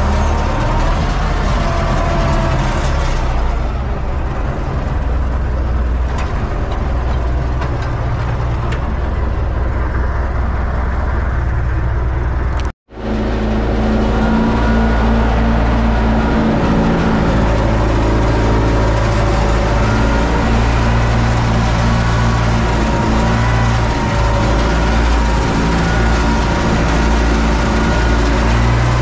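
UTB Universal 650 tractor's four-cylinder diesel engine running steadily, heard from inside the cab while the tractor pulls a corn planter across the field. The sound cuts out for an instant a little under halfway through, then resumes.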